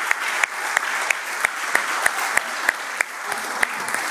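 Onlookers clapping, with sharp strikes standing out at an even beat of about three a second.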